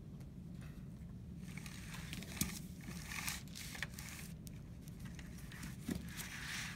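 Mechanical pencil drawing lines along a plastic drafting triangle on tracing paper, with the triangle and paper being shifted. A light tap about two and a half seconds in.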